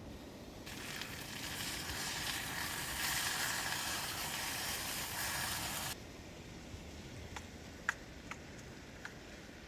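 A sizzling hiss builds over a couple of seconds, holds, then cuts off suddenly about six seconds in. A few sharp ticks follow.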